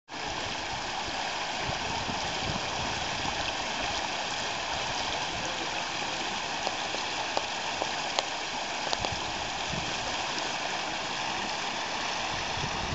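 Muddy water gushing up out of a street sinkhole and churning over broken asphalt and gravel: a steady rushing, with a few faint ticks about halfway through.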